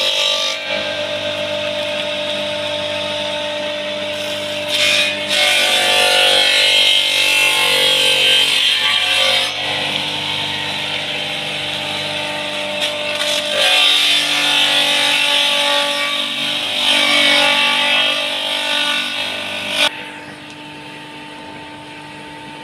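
Homemade chopping machine running with a steady motor hum while papaya leaves and stalks are fed in and shredded. The chopping noise rises and falls with each handful. Shortly before the end the feeding stops and the machine runs on lighter and quieter.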